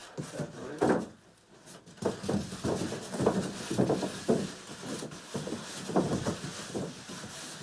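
Styrofoam packing pieces squeaking and scraping against a cardboard box as they are pulled off and pushed back in, in a quick irregular series of squeaks and rubs.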